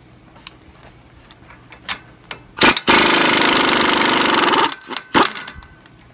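Impact wrench hammering off a 32 mm CV axle nut. A short blip comes first, then a steady rapid hammering of nearly two seconds, then another short blip.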